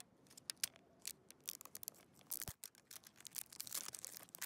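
Cardboard and paper packaging of a toy surprise box being pulled apart and unfolded by hand: faint crackles and clicks, sparse at first and getting busier after about a second and a half.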